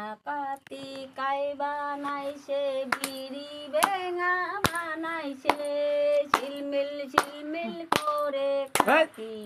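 A woman singing a folk song in the local dialect without instruments, with hand claps keeping time about once a second.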